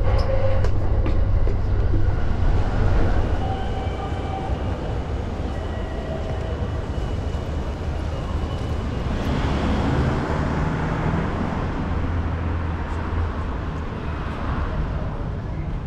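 Train running: a steady low rumble under a noise haze, a little louder in the first three seconds, with faint high tones a few seconds in.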